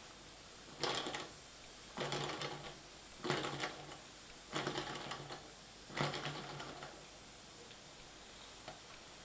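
Mamod model steam engine giving five short spurts of steam, about one every second and a bit, each a hiss with a fine mechanical clatter and a low hum, then stopping.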